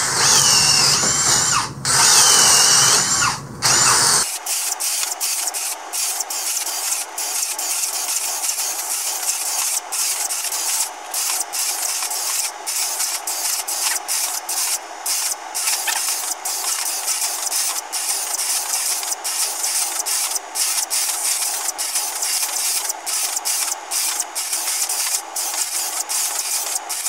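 Hart and DeWalt 20-volt brushless cordless drills running together, spade bits boring a row of 3/8-inch holes through a 2x4, the motor whine wavering as the bits cut. About four seconds in the sound turns thin, losing its low end, and is broken by many short gaps.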